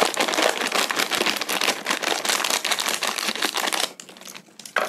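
Scissors cutting across the top of a plastic snack bag: a fast, dense run of crisp snips and crinkling plastic, close to the microphone. It stops about four seconds in, leaving a brief rustle near the end.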